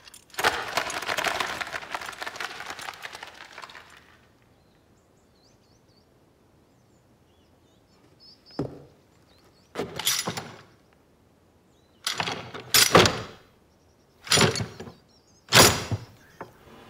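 A bird's wings flapping hard for about four seconds as it takes off, then quiet, then about six short knocks and thuds spaced a second or two apart.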